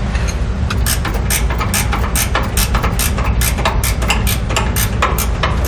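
Hand ratchet with a 15 mm socket clicking in quick, steady strokes, about five clicks a second, as the sway bar end link bolt is backed out of the frame rail. A steady low hum runs underneath.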